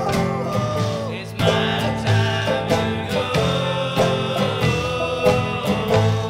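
Bluegrass string band playing a song, with guitar and a singing voice; the playing dips briefly a little over a second in, then comes back in fuller.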